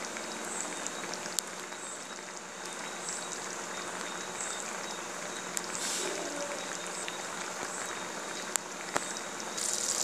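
Yogurt gravy with okra simmering in a kadai: a steady bubbling hiss with a few sharp clicks from bursting bubbles.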